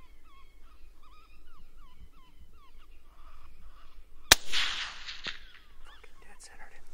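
A string of short, high, falling yipping calls in quick succession, then a single rifle shot about four seconds in whose report trails off over about a second.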